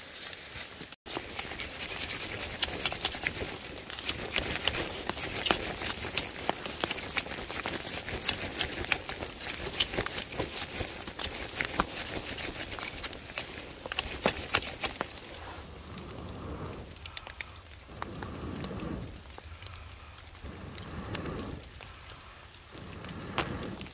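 Light rain pattering, with small crackles from a smoking, damp-wood campfire. In the last third, four slow breaths are blown into the fire about two seconds apart to coax the wet wood into flame.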